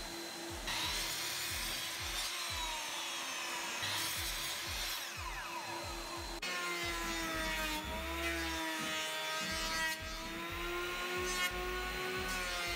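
Sliding compound miter saw running and cutting wooden boards, its motor whine rising and falling. About halfway it gives way to a steadier power-tool motor hum whose pitch wavers slowly.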